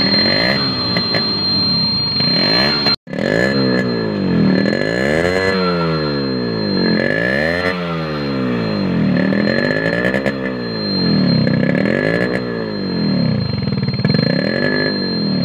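Exhaust note of a Yamaha RX100's air-cooled two-stroke single-cylinder engine, revved up and falling back to idle over and over, about every one and a half to two seconds. The sound cuts out for an instant about three seconds in.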